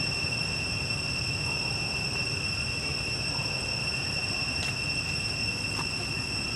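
Steady high-pitched insect drone, unwavering throughout, over a low outdoor rumble, with two faint clicks late on.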